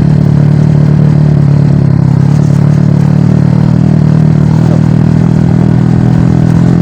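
Motorcycle engine running at a steady, unchanging pitch while riding downhill.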